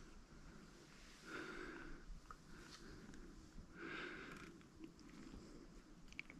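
A person breathing slowly and softly close to the microphone, one breath about every two and a half seconds, with a few faint ticks.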